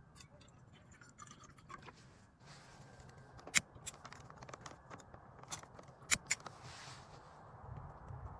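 A series of sharp clicks and scrapes, irregular, with the loudest click about three and a half seconds in and a quick pair a little past six seconds, over faint background hiss.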